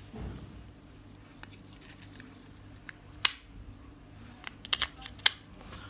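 AA batteries being pushed into a TV remote's plastic battery compartment: a few sharp plastic clicks and taps, the loudest about three seconds in and a small cluster near the end.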